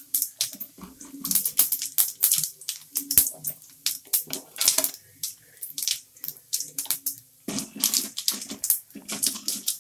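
Urad dal and cumin seeds crackling and spluttering in hot oil in a stainless steel kadai, with irregular sharp pops throughout and a wooden spatula stirring at the start.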